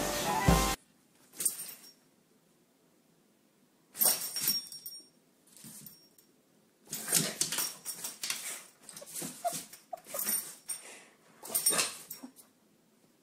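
Background music cuts off about a second in. Then a dog makes short whining, whimpering sounds and small barks in separate bursts, with quiet gaps between them.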